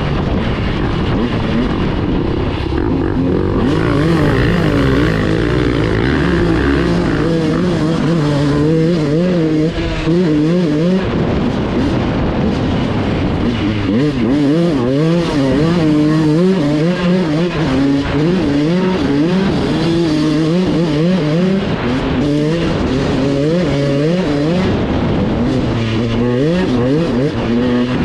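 Dirt bike engine revving up and down as it is ridden, its pitch rising and falling over and over with throttle and gear changes.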